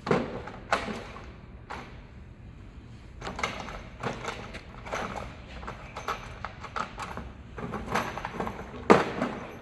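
Irregular metallic clinks, rattles and knocks of small welding parts, such as MIG contact tips, being handled and rummaged for, with the sharpest clack near the end.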